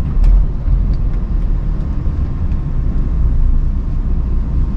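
Heavy lorry driving, heard from inside the cab: a steady low rumble of engine and road noise, with a faint click shortly after the start.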